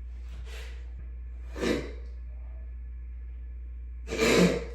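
A person breathing out heavily in sighs: a faint one, a clearer one, and a louder, longer one near the end, over a steady low hum.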